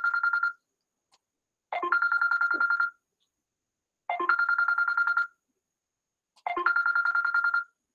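Phone ringing with a fluttering electronic ring: three rings, each a bit over a second long and about two seconds apart, after the tail of an earlier one at the start. The caller is ringing again after an unwelcome call.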